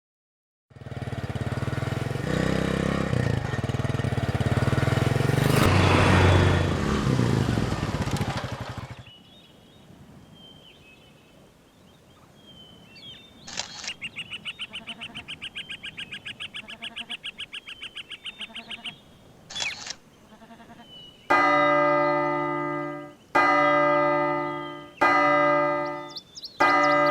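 A loud passage of music for the first several seconds, then quiet with short bird-like chirps. Next comes a fast, rattling ring lasting about five seconds, and near the end four loud ringing tones about a second and a half apart, each fading away.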